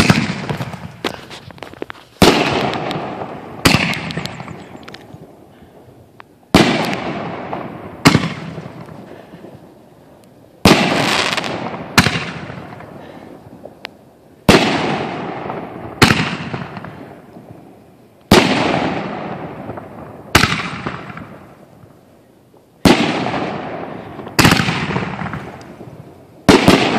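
Multi-shot consumer firework cake firing aerial shots: about a dozen sharp bangs, one every one and a half to two and a half seconds, each trailing off over a second or two.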